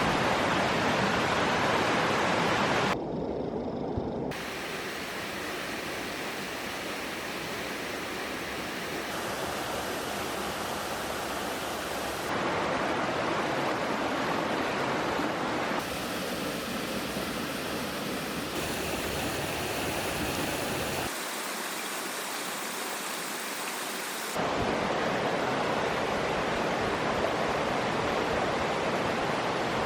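Rushing water of a forest stream or small waterfall, a steady noise that jumps abruptly in loudness and tone several times, as if between different spots along the water.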